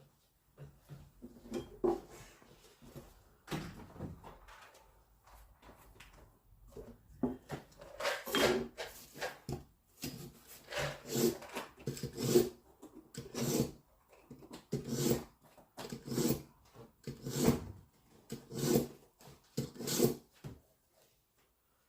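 Kitchen knife drawn again and again through a knife sharpener, the blade scraping against the sharpening stone. The strokes are irregular at first, then settle into an even rhythm of about one stroke a second.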